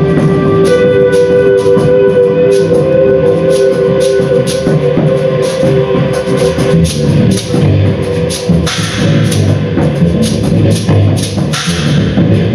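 Live band music: busy drumming and cymbal hits, with two held tones sustained through the first half.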